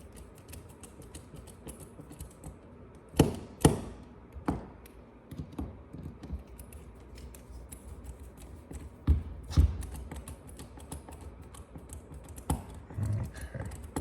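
Small launcher parts being handled and fitted together: a run of light clicks and taps, with two sharper clicks about three seconds in and two more about nine seconds in.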